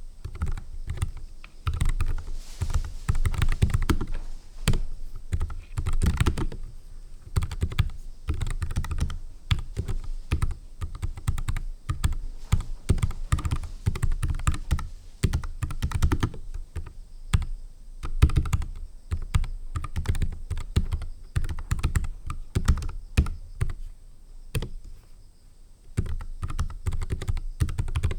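Continuous typing on a NuPhy Air 75 low-profile mechanical keyboard with tactile Gateron Brown switches: a dense, steady run of key clicks and taps.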